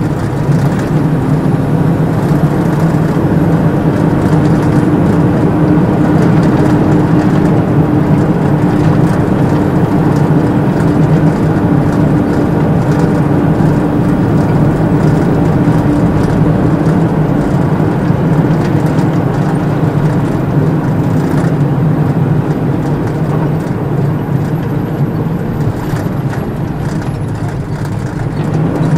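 Truck engine running steadily under way, heard from inside the cab, with a steady hum that fades out about two-thirds of the way through.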